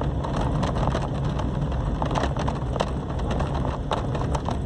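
Car driving on an unpaved dirt road, heard from inside the cabin: the engine hums steadily while scattered short knocks and rattles come as the car rides over the rough surface.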